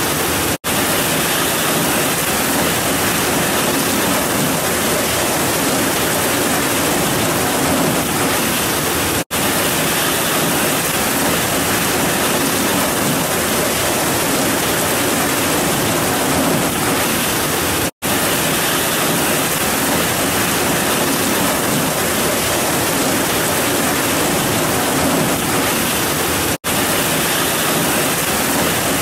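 Heavy rain falling in a steady, dense hiss. It drops out for an instant four times, about every nine seconds.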